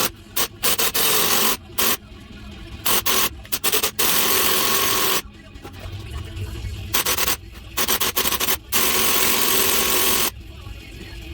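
Impact wrench run in repeated short bursts on a stubborn bolt, cutting in and out again and again.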